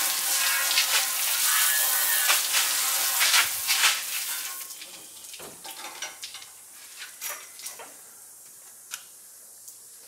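Garden hose spraying water over a car bumper to rinse it off during sanding; the spray hiss stops about four and a half seconds in. Then a few light knocks and clatters as the bumper is handled.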